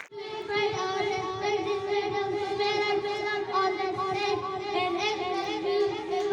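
Young children singing together in a group, with a steady held note under the voices.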